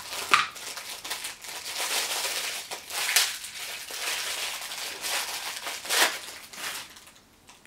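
Thin plastic packaging crinkling as a small item from a survival kit is unwrapped by hand, with three sharper crackles.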